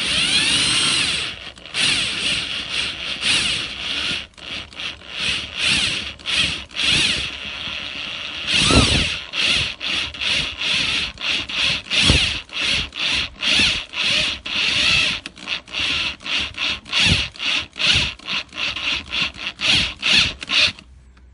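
Cordless drill driving a 3/4-inch tap into a plastic barrel bung, cutting threads in the plastic. After a first continuous run of about a second and a half, it is run in many short bursts, roughly two a second, until it stops just before the end.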